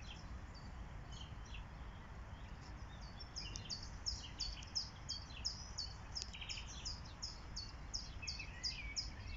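A small bird chirping: a few scattered high chirps at first, then from about three seconds in a quick, regular run of short high notes, about three a second. A steady low rumble lies underneath.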